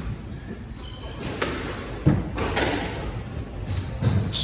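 A squash rally: the ball is struck by rackets and knocks off the court walls in a series of sharp hits, the loudest about two seconds in. Rubber-soled shoes squeak on the wooden floor as the players move, near the end.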